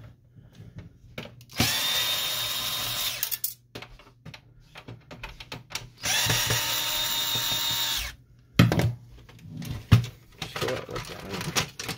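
Power screwdriver running in two steady spells of about two seconds each, a whining motor, as it backs out the two front screws of a Samsung CLP-365W printer's top cover. Near the end come a few knocks and clicks as the loosened plastic top cover is handled.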